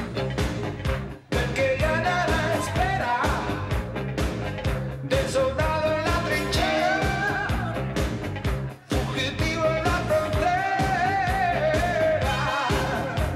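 Pop-rock song: a male lead vocal singing over a full band with a steady beat. The band breaks off briefly twice, about a second in and again near nine seconds.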